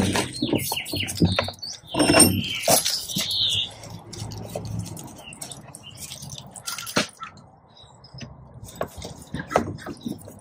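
Clanks, knocks and rattles of a chainsaw being unclamped from a filing vise and turned around, loudest at the start and again about two seconds in, then scattered lighter clicks.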